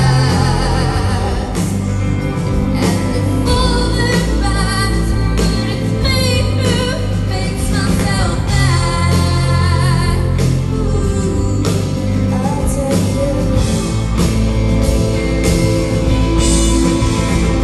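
Live rock band playing: a woman singing lead over electric guitars, bass guitar, drums and keyboards, heard from among the audience in a concert hall.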